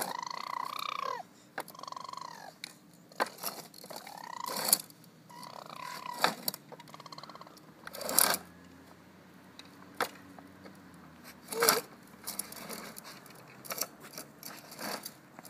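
A toddler's high-pitched squeals and babbling: four rising-and-falling calls in the first half. Scattered sharp clicks and knocks come from the plastic walker toy and its wheels on asphalt.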